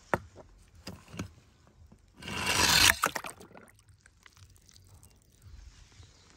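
A die-cast toy car clicks against hard plastic, then slides down a plastic chute with a rising scraping rush about two seconds in and drops into a plastic tub of water, followed by a few light clicks and knocks.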